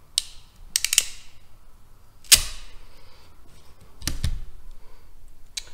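Sharp clicks and snaps of a ratcheting crimping tool closing on and releasing a heat-shrink butt connector, the loudest about two seconds in, with a duller knock about four seconds in.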